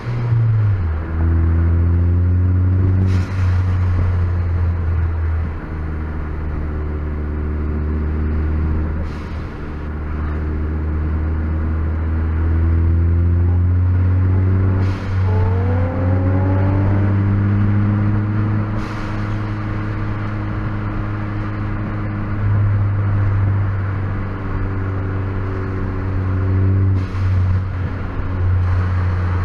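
COBB Stage 3–tuned Ford Focus ST's turbocharged 2.0-litre four-cylinder engine heard from inside the cabin under way, with a steady low drone. Its pitch climbs slowly through several long pulls, with a quicker rise about halfway through and a few brief clicks.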